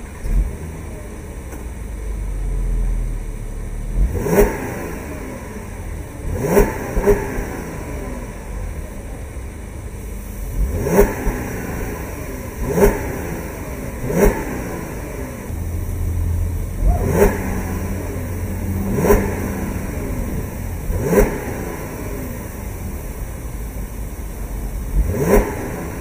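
Audi A7 50 TFSI with an Fi Exhaust valved cat-back and quad tips, idling and blipped about ten times in quick revs. Each rev rises sharply in pitch and falls back to idle.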